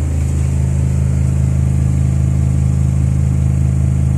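Subwoofer playing a loud, sustained deep bass tone made of several steady low notes held together, with a buzzing rattle of shaken objects above it.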